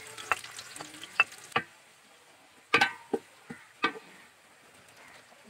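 Sliced onions frying in hot ghee in a large aluminium pot, a light sizzle that dies down after a second or two. A wooden spoon knocks and scrapes against the pot about six times.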